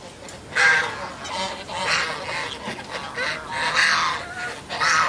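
Poultry calling: a run of about six loud calls, each shorter than a second.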